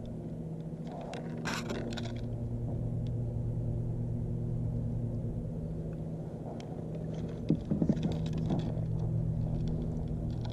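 A steady low motor hum with a constant pitch, with light clicks of handling a second or two in and a few sharper knocks about three-quarters of the way through.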